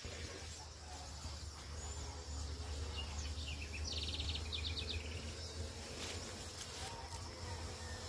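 Honeybees buzzing at flowering coffee blossoms, with a bird singing a short rapid trill about four seconds in, over a steady low rumble.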